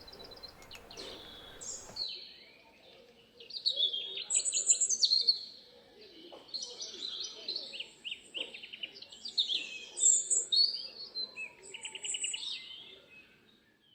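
Songbirds chirping and singing: many quick high chirps and trills, starting about two seconds in and dying away just before the end.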